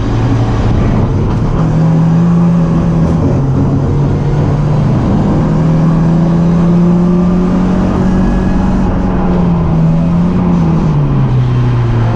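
BMW 318ti Cup race car's four-cylinder engine running hard under racing load. Its pitch rises about two seconds in, drops, climbs again and holds, then falls near the end, as the driver works through the gears and lifts for corners.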